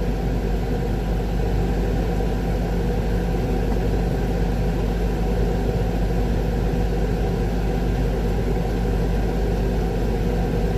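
Heavy diesel engine of the concrete equipment idling steadily, an even low hum that neither revs nor changes.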